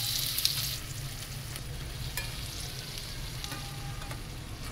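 Sliced bitter gourd sizzling in hot oil in a metal karahi while a slotted metal spatula stirs it, with light scrapes and clicks against the pan. The sizzle is loudest for the first second, then settles to a steady lower hiss.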